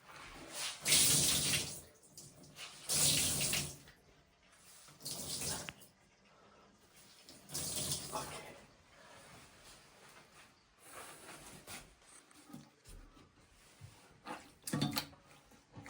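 Water pouring and splashing in short bursts as a towel soaked in toilet-tank water is wrung out, to bail the tank dry. There are four main gushes in the first half and smaller trickles after.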